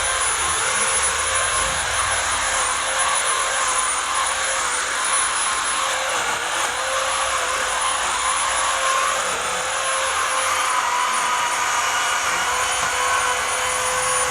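Chainsaw running at a steady high speed as it cuts, a constant whine that sags slightly in pitch a couple of times under load.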